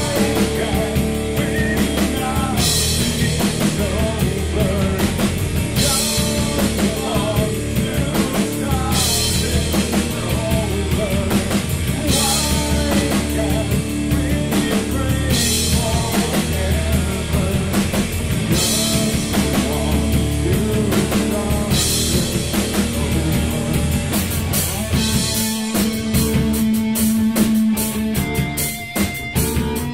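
Live rock band playing: a sung lead vocal over electric guitar, bass guitar and drum kit, with a cymbal crash about every three seconds. Near the end the singing drops out and a held guitar note rings over quick drum hits.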